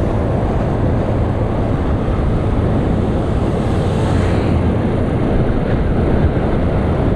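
Wind rushing and buffeting over the microphone of a motorcycle riding at highway speed, with the motorcycle's engine running steadily underneath.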